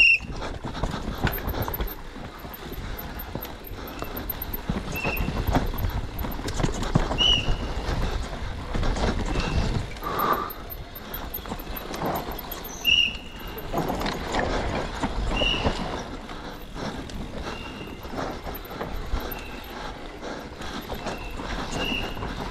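Cube Two15 downhill mountain bike at speed on a dry dirt track, the frame, chain and tyres rattling and clattering continually over bumps and roots. Short high squeaks come in every second or two.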